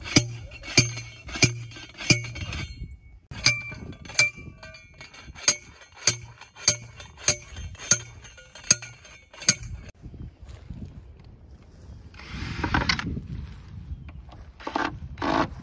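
Steel post driver hammering a steel T-post into the ground: about fifteen sharp metal clanks, roughly one and a half a second with a short pause, each ringing briefly. Near the end come a few short, louder rasping sounds.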